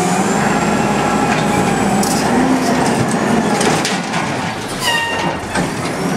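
Automated side-loader garbage truck running, its hydraulic arm whining as it lowers an emptied cart back to the curb. A brief high squeal comes about five seconds in.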